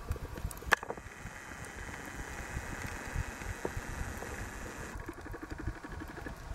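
Underwater noise picked up by a camera held below the surface on a shallow reef: a low rumble of moving water, a sharp click about a second in, a steady hiss for a few seconds, then a fast, even pulsing near the end.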